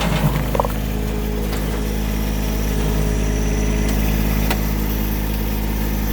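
John Deere 1023e tractor's small three-cylinder diesel engine running steadily, with a few faint clicks over it.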